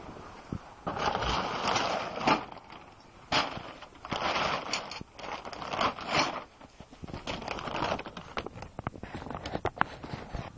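Rustling and scraping of fabric and gear handled right against the microphone. It comes in irregular bursts, with scattered sharp clicks and knocks in the last few seconds.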